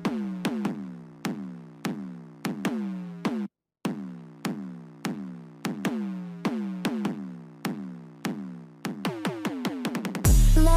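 Electronic music intro: drum-machine hits in an uneven rhythm, each trailing tones that slide down in pitch, with a short break about three and a half seconds in. A much louder full beat comes in near the end.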